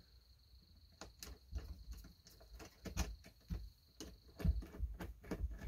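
Scattered light clicks and taps of small parts being handled and fitted by hand on a chainsaw being reassembled.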